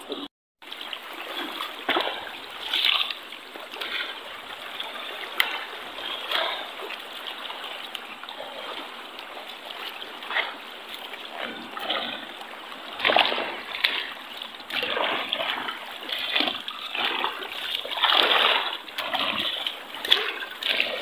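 Footsteps splashing through shallow water over rocks, irregular steps every second or so, with a brief cut-out just after the start.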